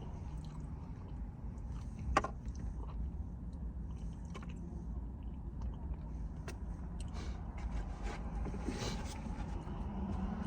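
Close-up chewing and mouth sounds of someone eating, with soft scattered clicks and one sharper click about two seconds in, over a steady low hum.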